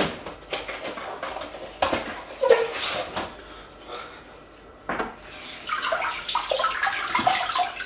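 Water splashing and gurgling as a 1000-grit Naniwa Chosera waterstone is wetted, with a few hard knocks as the stone is handled.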